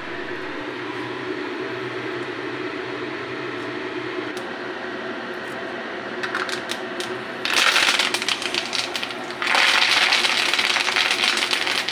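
Hot oil frying gently in a pan, then fresh curry leaves dropped into it about six seconds in spit and crackle loudly, the sputter flaring in two bursts with a brief lull between.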